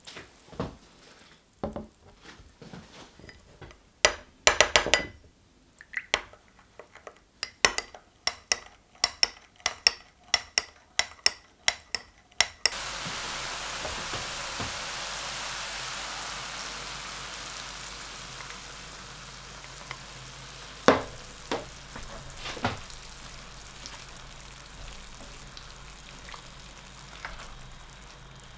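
A metal spoon stirring miso paste into water in a glass measuring jug, clinking against the glass in a run of sharp ticks that come about twice a second toward the end. About halfway through this gives way to a sauté pan of beef mince and vegetables sizzling, slowly fading, with a few sharp knocks of a spatula stirring it.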